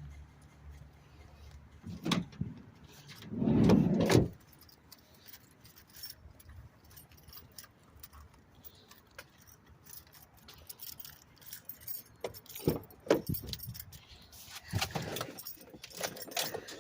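Car keys jangling and clicking as they are handled, with scattered sharp knocks and a louder rustling clatter about three to four seconds in.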